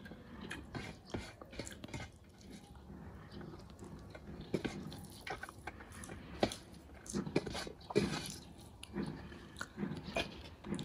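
Close-miked chewing and lip-smacking of someone eating dal bhat (rice and lentils) by hand, in irregular short wet clicks that come more often in the second half, with fingers working rice on a metal plate.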